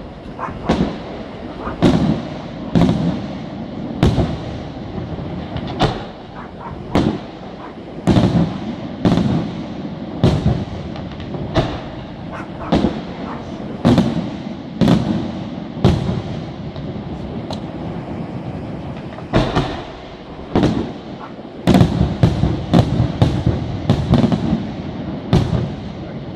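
Aerial firework shells bursting one after another, about one bang a second, each with a trailing echo. There is a short lull past the middle, then a faster string of bangs near the end.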